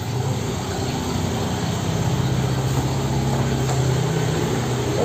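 Steady low hum of an engine or motor running, holding an even pitch and growing a little stronger about two seconds in.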